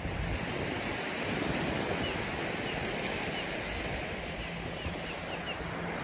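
Steady wash of surf and wind, with wind buffeting the microphone. Several faint, short calls from the seabird flock come between about two and five seconds in.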